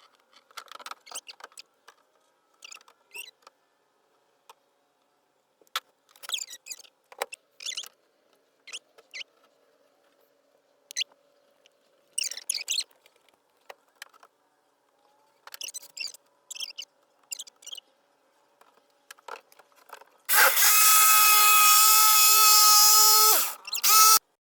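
Small knocks and taps of wood and tools being handled, then about twenty seconds in a power tool starts cutting wood with a loud, steady, high whine that lasts about four seconds, dipping briefly just before it stops.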